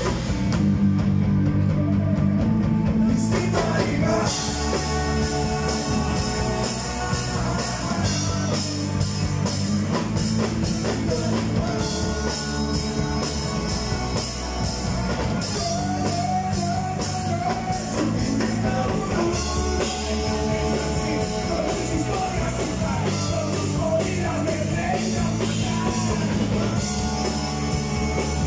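Live rock band playing: electric guitars and a drum kit with a male singer's voice over them.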